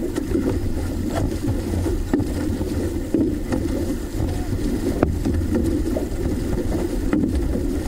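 A six-person outrigger canoe moving under paddle: a steady low rush of water and wind on the hull-mounted microphone, with light knocks about once a second.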